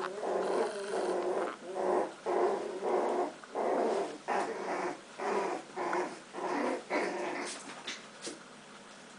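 Puppies play-growling at each other in a string of short growls, about one or two a second, that die away near the end, followed by a few light clicks.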